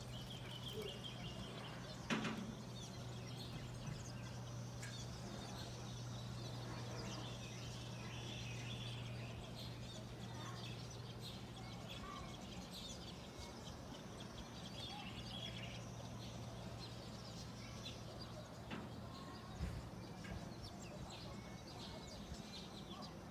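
Faint bird calls scattered over a steady low hum, with a sharp knock about two seconds in.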